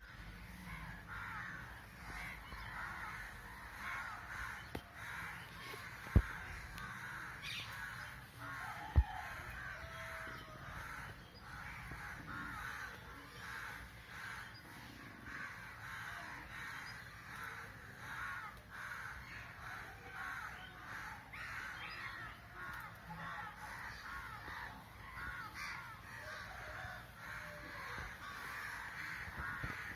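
A flock of parrots chattering and squawking continuously, many calls overlapping. Two sharp knocks stand out, about six and nine seconds in.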